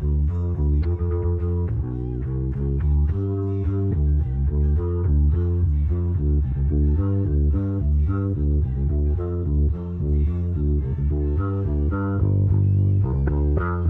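Electric bass guitar playing a driving, melodic psychedelic rock line, separated out of a full band recording, with faint traces of the other instruments left behind by the separation.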